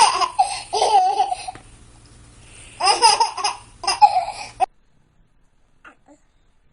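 A baby laughing in two bouts of giggles, the sound cutting off abruptly about two-thirds of the way through.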